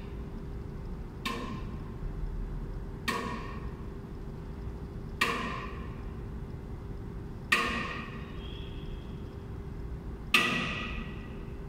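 A 50 mm, 5-tonne ratchet tie-down with double J hooks under rising load on a tensile tester gives five sharp cracks with a metallic ring, about two seconds apart and growing louder. Each crack goes with a small slip of the strap assembly, which shows as a sawtooth drop in the load curve as it nears 1,600 kgf. A steady faint hum runs underneath.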